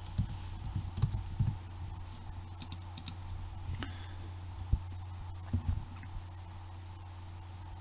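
Computer keyboard keys tapped in a quick run as a search term is typed, then a few separate clicks, over a steady low hum.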